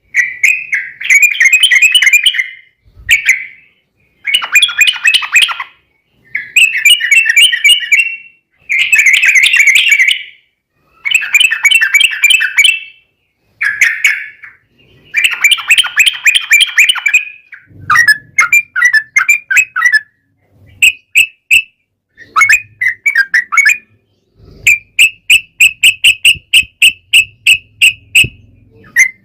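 Yellow-vented bulbul song: loud, bubbly chattering phrases of a second or two, one after another with short gaps. Near the end it breaks into a long, even run of rapid repeated notes, about five a second.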